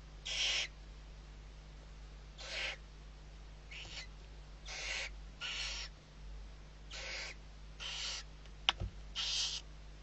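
Barn owl chicks giving their hissing food-begging calls: about eight harsh hisses of under half a second each, at irregular intervals. There is one sharp click near the end.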